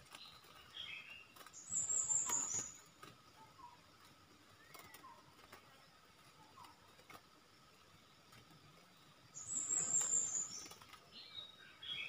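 Caged stripe-throated bulbul giving short, quiet bubbly call phrases. Twice, about two seconds in and again near ten seconds, comes a louder rustling burst with a high, thin, slightly falling note.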